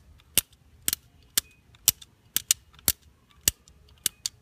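Plastic gear wheels on a fidget cube's face clicking as they are turned by thumb: about ten sharp clicks, roughly two a second and unevenly spaced. This gear has a little bit of noise.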